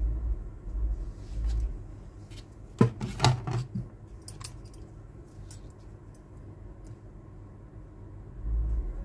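Handling noise from a tablet and its plastic back cover: a quick run of sharp clicks and light knocks about three seconds in, followed by a few fainter ticks, with low thuds at the start and again near the end.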